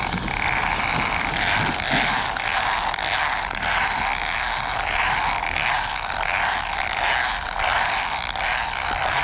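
Zipline trolley running along a steel cable: a steady whirring rush that starts suddenly and keeps going.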